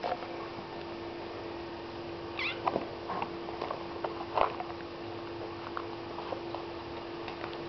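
Young kittens mewing a couple of times: short high calls about two and a half and four and a half seconds in. Faint soft knocks and a steady hum lie underneath.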